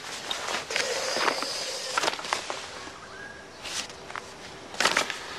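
A few footsteps and light knocks as a person moves close across a room.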